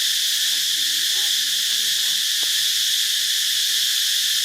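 Steady, loud insect chorus of crickets or cicadas, a continuous high-pitched drone that does not change.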